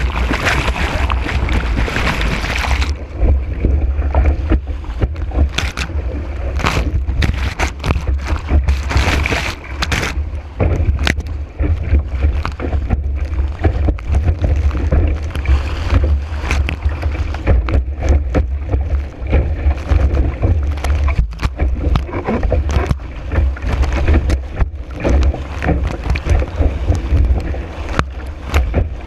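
Kiteboard planing fast over choppy water in high wind, heard from a camera on the board: a heavy steady low rumble of wind buffeting, with frequent sharp slaps and splashes of chop against the board. About three seconds in the bright hiss drops away suddenly and the sound turns duller.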